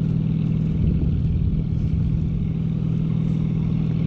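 Wind buffeting the microphone under a towed parasail, over a steady low drone from the tow boat's engine.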